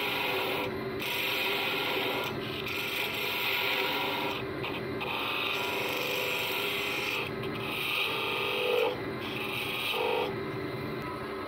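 Narrow lathe chisel cutting a small spinning bloodwood cone on a wood lathe. The tool scrapes and hisses on the wood in repeated short passes with brief pauses between them, over the steady hum of the running lathe.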